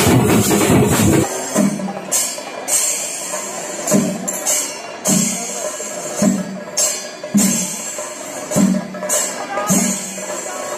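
Festival percussion: heavy, dense drumming with sticks, changing about a second in to a regular beat of drum strokes with bright metal cymbal clashes, roughly one or two a second.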